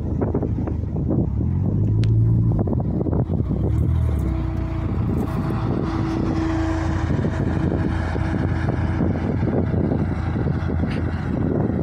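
SUV engine running while driving over a rough snowy off-road track, its pitch shifting in the first few seconds and then holding steady, with many small knocks and rattles from the bumpy ground.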